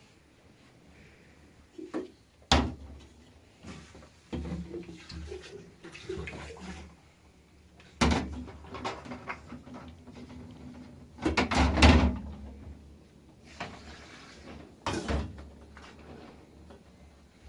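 Irregular knocks and clatters of objects being handled, with the loudest bangs about two and a half seconds in, at about eight seconds, a cluster near twelve seconds, and one at about fifteen seconds.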